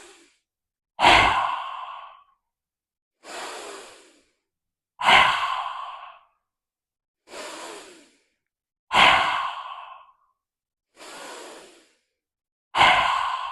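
A woman doing lion's breath (simhasana): four forceful open-mouthed exhalations with the tongue out, each a loud rasping "haaa" about a second long, coming about every four seconds. Quieter inhalations fall in between.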